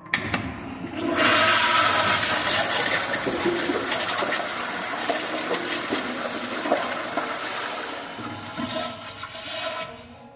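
Wall-hung commercial toilet with a flushometer valve flushing: a sharp click, then a loud rush of water from about a second in that tails off in gurgles near the end.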